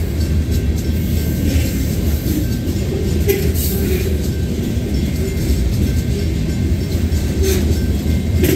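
Covered hopper freight cars rolling slowly past: a steady low rumble of steel wheels on rail, with a few sharp clacks around three seconds in and near the end, and a faint steady high squeal.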